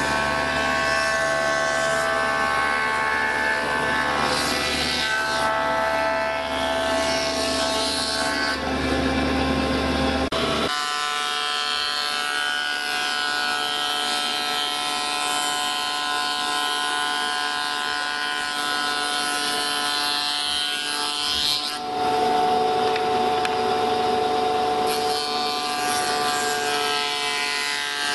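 Spindle moulder running at speed, its spindle cutter shaping wood as the workpiece is fed past: a steady whine over the noise of cutting. The sound changes abruptly about ten seconds in and again about two-thirds of the way through.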